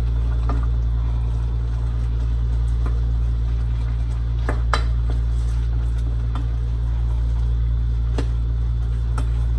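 A metal spoon stirs ground beef in a pot, with a few scattered sharp clinks of the spoon against the pot. A steady low hum runs under it and is the loudest sound.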